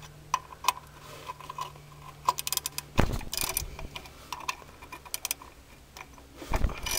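Ratchet wrench with a 13 mm socket clicking in short runs as it is swung back and forth, loosening the water pump pulley nuts, with two dull knocks, about three seconds in and near the end.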